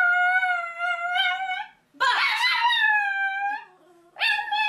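A dog howling: long, high, wavering howls, the first trailing off just before two seconds in, a second running to about three and a half seconds, and a third starting near the end.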